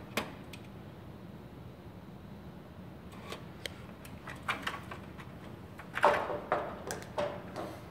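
Aviation snips clicking through aluminum fascia in a few short cuts, then the thin aluminum sheet rattling and flexing in several quick knocks as it is handled, about six seconds in.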